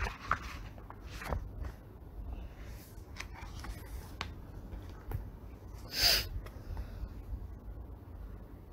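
Pause in a close-miked voice recording: a low steady hum with scattered small clicks, and about six seconds in a short, loud intake of breath.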